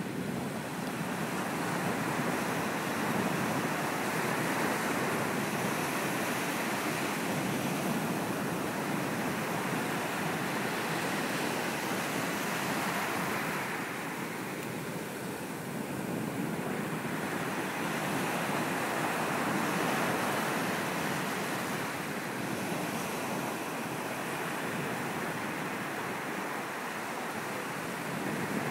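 Atlantic surf breaking on a sandy beach: a continuous wash of waves that eases for a few seconds about halfway through, then builds again.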